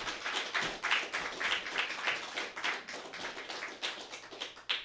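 Audience applauding to welcome a speaker; the clapping stops near the end.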